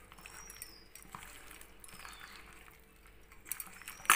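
Hands squishing and kneading spice-paste-coated rohu fish pieces in a steel bowl: soft wet squelching and crackling, with a sharp clink near the end.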